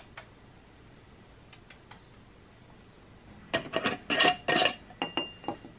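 Glass mason jar and its metal screw lid handled on a stainless-steel counter: a quick cluster of clinks and knocks about three and a half seconds in, a few of them ringing briefly, after some faint clicks.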